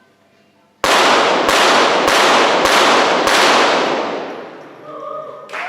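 A rapid-fire series of five .22 Short pistol shots, evenly spaced about 0.6 s apart, each with a long echoing tail. Applause breaks out near the end.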